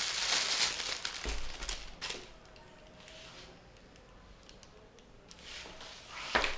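Crinkling and rustling of handled material for about two seconds, then quiet handling, with a couple of sharp clicks near the end.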